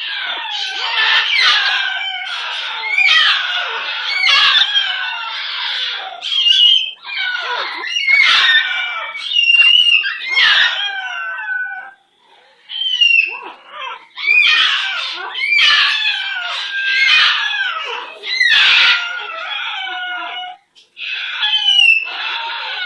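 Pet green parrot screeching and squawking harshly, with chattering and short whistled notes, almost without a break; it pauses briefly about halfway through and again near the end.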